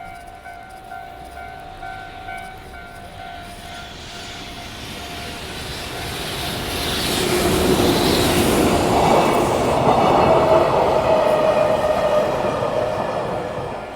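Railway level-crossing alarm bell ringing its steady repeated ding while a train approaches and passes. The train grows louder from about a third of the way in, is loudest through the second half and drowns out the bell, then drops away just before the end.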